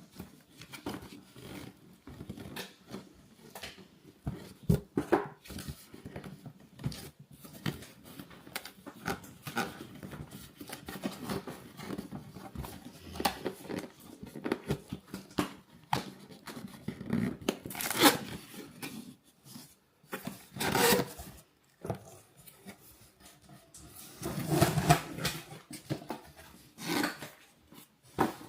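Cardboard box being pried open with a letter opener and its flaps and packing handled: irregular scraping, tapping and rustling, with a few louder knocks and rustles in the second half.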